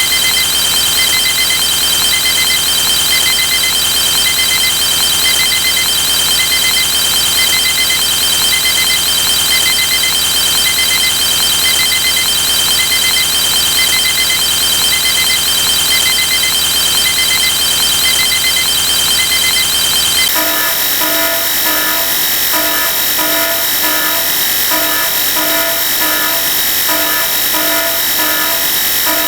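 A dense, harsh wall of many stacked electronic sound effects, buzzer- and alarm-like, with a short beep repeating about once a second. About 20 seconds in the mix changes abruptly to a new layered pattern of repeating beeps at several pitches.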